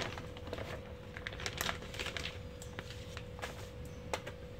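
Clear plastic bag crinkling and crackling on and off as it is pulled off a small label printer by hand.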